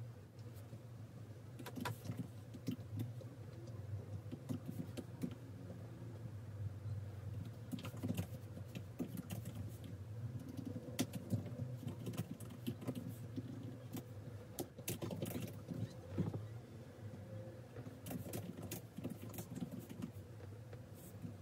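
Typing on the ASUS ROG Zephyrus G14 laptop's keyboard: an irregular run of light key clicks with a few louder taps, over a low steady hum.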